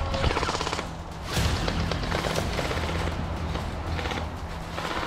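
Airsoft guns firing on full auto: long bursts, each a rapid stream of sharp clicks, with short breaks about a second in and near the end, over background music.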